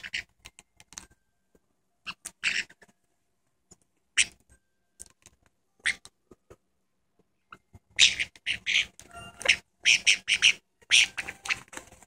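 Two caiques, a black-headed and a white-bellied, play-fighting and giving short, harsh squawks, scattered at first and then coming thick and fast from about eight seconds in.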